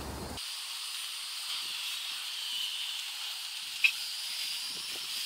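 Steady high-pitched hiss, with one short click about four seconds in.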